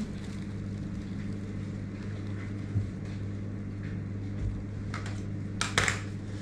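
Steady low hum of a running household appliance motor, with a few short knocks near the end as things are handled on the kitchen counter.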